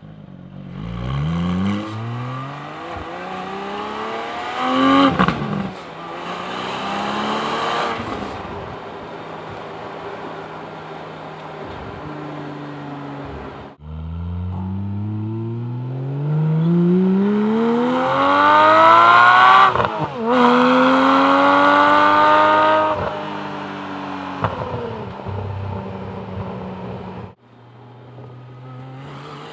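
Porsche 718 Cayman GT4's 4.0-litre flat-six exhaust heard from outside the car as it drives: the engine note climbs steadily in pitch under acceleration, drops at each upshift (about five seconds in and again about twenty seconds in), and eases off between pulls. The sound cuts abruptly between takes twice.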